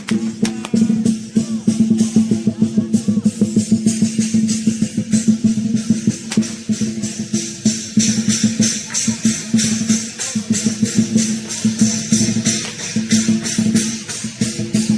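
Lion dance percussion ensemble: a drum beating fast and steadily with clashing cymbals, over a sustained ringing tone such as a gong.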